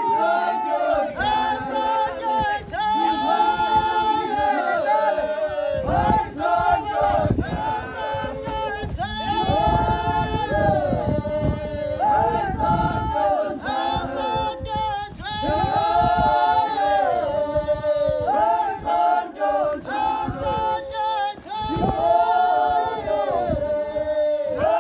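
A group of women singing a traditional Xhosa song together, unaccompanied.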